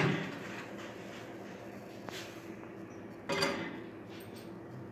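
Microwave oven door pulled open with a click, then quiet handling and, about three seconds in, a short clatter with a brief ring as an aluminium cake tin is set down on the oven's metal rack.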